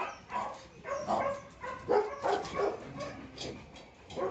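Dogs barking repeatedly in short barks, about three a second, easing off near the end.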